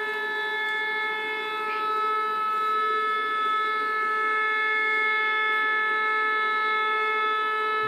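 A siren holding one steady pitch, a clear tone with a stack of overtones.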